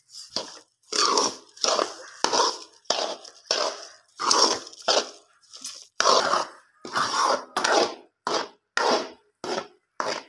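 A perforated steel spoon scraping around a metal karahi, stirring a thick, grainy mix of grated carrot, semolina and just-added sugar. About sixteen even strokes, roughly three every two seconds, coming a little quicker near the end.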